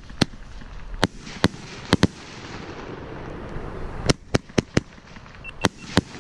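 Fireworks going off: about eleven sharp bangs at irregular intervals, bunched in small clusters.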